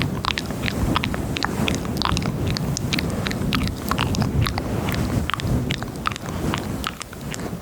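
Close-miked ASMR mouth sounds: quick wet clicks and smacks, several a second, over a steady low rustle.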